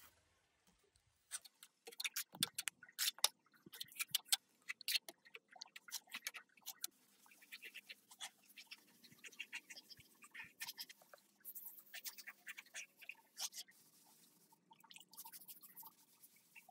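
Irregular clicks, taps and scratching of small handwork with tools and materials, coming in dense clusters.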